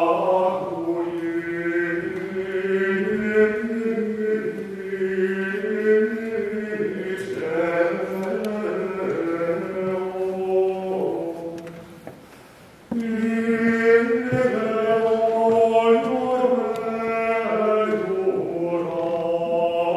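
Voices singing a sacred chant in two long phrases, with a brief break about twelve seconds in before the singing resumes.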